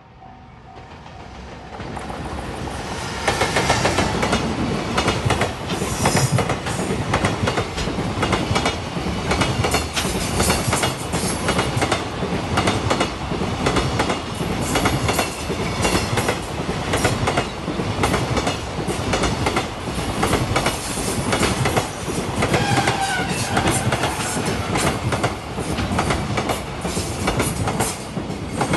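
Freight train hauled by an EF210 'Momotaro' electric locomotive passing close by. The sound rises over the first three seconds, then the wagons' wheels keep up a loud, steady clatter over the rail joints.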